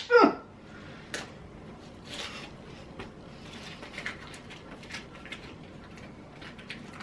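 A small black carrying case being handled and opened: scattered light clicks and soft rustling. A sharp click and a brief falling voice sound come at the very start.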